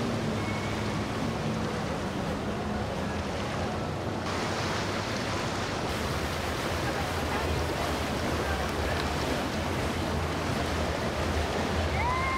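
Low rumble of boat engines under a steady rush of water and wind, with the noise changing abruptly about four seconds in and again about six seconds in.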